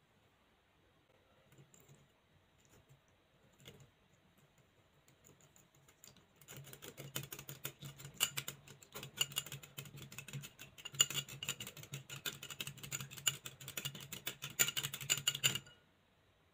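Metal coil whisk beating an egg in a glass bowl: fast, dense clicking and tapping of the wire against the glass, starting about six seconds in and stopping abruptly about a second before the end.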